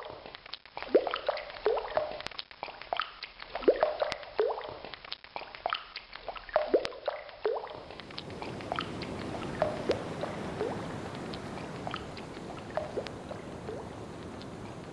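Water drops plinking irregularly, several a second, thinning out after about halfway as a steady rushing noise like surf swells in.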